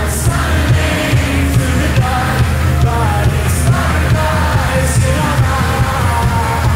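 A live indie-pop band playing a song through a concert PA, with a driving drum beat, heavy bass and melodic vocal or synth lines over it.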